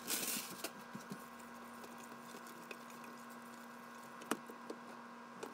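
A spoon stirring thick chili in a slow cooker's crock: soft wet patter and scraping with scattered small clicks, and one sharp knock of the spoon against the crock about four seconds in, over a faint steady hum.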